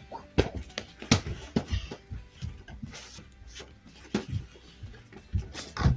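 A series of irregular knocks and thuds, about ten in six seconds, some sharp and some dull, over a low steady hum in a small room.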